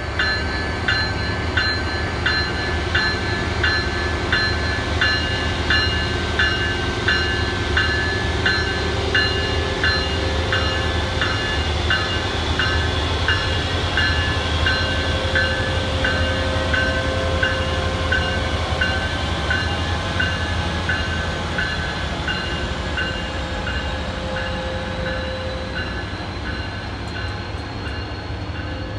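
An Amtrak Pacific Surfliner train led by a Siemens Charger diesel-electric locomotive passing close by with a steady rumble, its cars rolling past. A bell rings steadily throughout, a few strokes a second, growing fainter toward the end.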